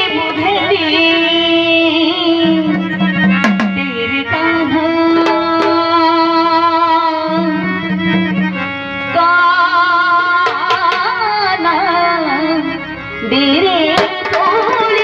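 Instrumental stretch of a Marathi gavlan folk song: tabla playing under long held melody notes, with wavering high notes near the start and again toward the end.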